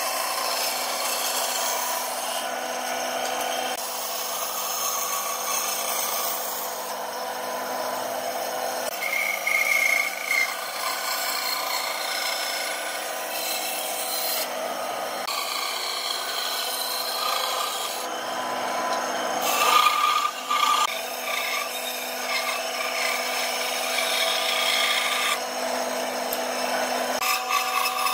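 Band saw running, its blade cutting through a pine board along curved and angled lines, with a steady motor hum underneath. The cutting noise swells louder a couple of times as the board is fed and turned.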